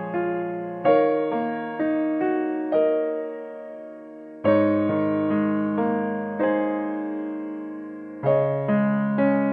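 Background piano music: notes and chords struck and left to ring out and fade.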